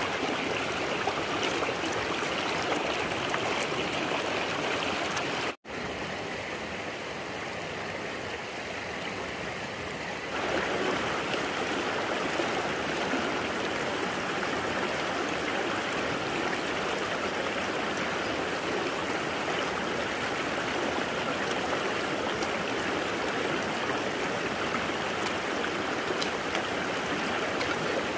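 Steady rush of running water, like a flowing stream. It cuts out for an instant about five and a half seconds in, comes back quieter, and grows louder again about ten seconds in.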